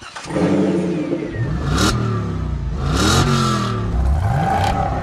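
Car engine revving up and down several times, its pitch climbing and falling, with short bursts of hiss at two of the peaks.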